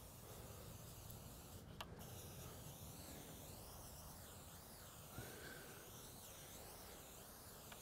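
Near silence: a faint, steady hiss of a pump-up garden pressure sprayer wetting bare soil, with one faint click about two seconds in.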